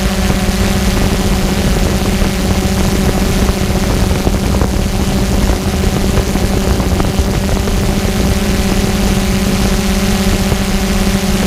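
Multirotor drone's motors and propellers running with a steady hum, one constant tone with overtones, over a loud rush of wind and propeller wash on the camera mounted on it.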